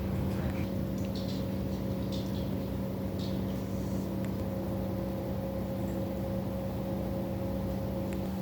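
A steady machine hum with a constant low pitch, with a few faint light clicks during the first few seconds.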